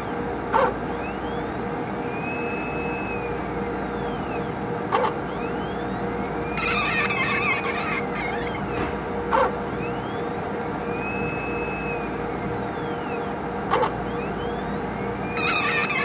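HPLC sample pump running with a steady hum and squeaking in high squeals that rise and fall in pitch, two of them louder and hissier. A short click comes about every four and a half seconds, four times.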